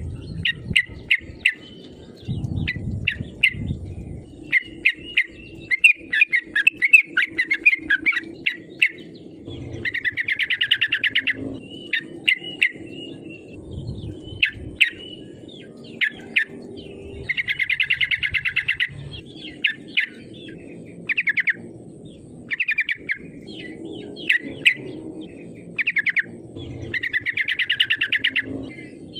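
Yellow-vented bulbul (trucukan) singing: bursts of sharp, bubbling chirps broken by fast rattling trills, the trills coming about every eight seconds, over a low background rumble.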